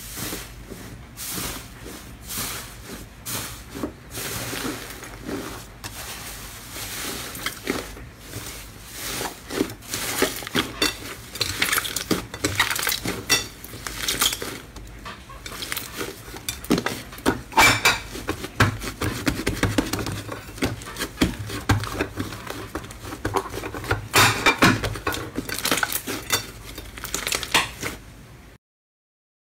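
Hands pressing, kneading and squeezing a grainy 'tofu dregs' slime: a dense run of sticky crackles, pops and squelches, louder in the second half, cutting off just before the end.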